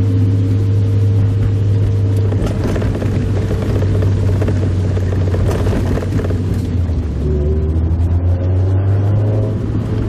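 Mazda Roadster (MX-5 Miata) inline-four engine running steadily under way, heard from inside the open-top cabin along with road noise. The engine note shifts lower about seven seconds in.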